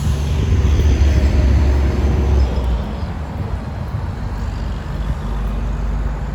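A heavy road vehicle's engine rumbling as it passes close by, loudest in the first two seconds or so and then easing off.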